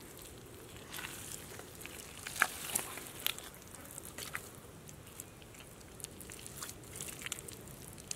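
Bare hands digging and squeezing through wet, sticky mud, making irregular squelches and wet smacks, the loudest a little over two seconds in.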